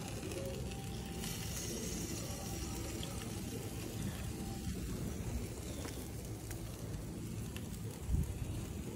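Barbecue sauce sizzling on chicken wings over a charcoal grill as it is brushed on, a steady crackling hiss. A brief low thump about eight seconds in.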